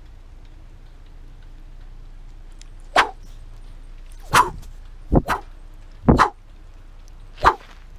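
A dog barking: sharp single barks beginning about three seconds in, roughly a second apart, two of them coming as quick double barks.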